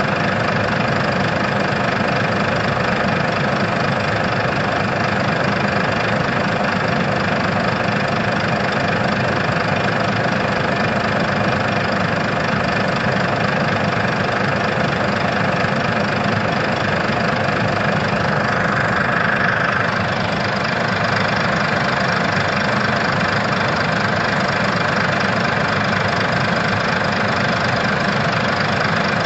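Heavy diesel engine of an earthmoving machine running steadily.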